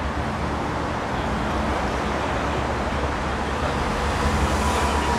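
Steady street traffic noise: road vehicles running past with a continuous low rumble.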